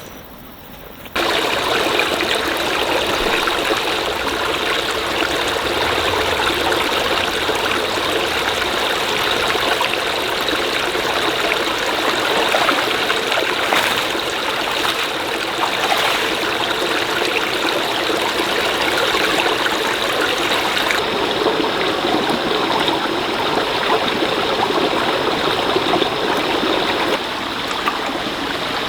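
Stream water flowing steadily, starting about a second in.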